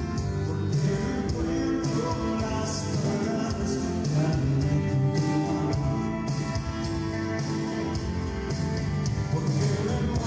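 Live band music with singing: sustained chords, bass and a steady beat of cymbal strokes, played at a soundcheck.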